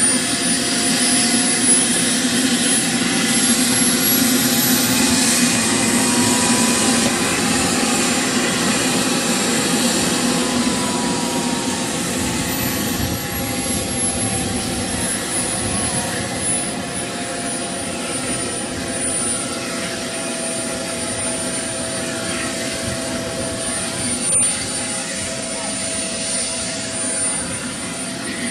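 Model jet turbine running: a steady rushing hum under a thin high whine that climbs in pitch a couple of seconds in and eases back down after about twelve seconds.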